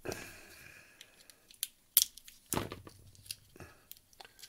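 Adhesive tape being peeled off a small electronic kit component: a tearing, slightly screechy peel at the start that fades over about a second, then a sharp click and rustling handling noises.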